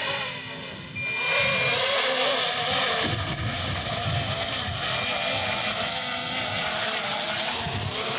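Propellers of a DJI Mini 3 Pro drone whining close by as it descends and hovers, the pitch wavering as the motors adjust, and getting louder about a second in. Two short high beeps sound, one about a second in and one about five seconds in.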